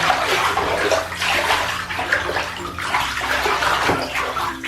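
Shallow water in a bathtub sloshing and splashing unevenly as it is stirred by hand.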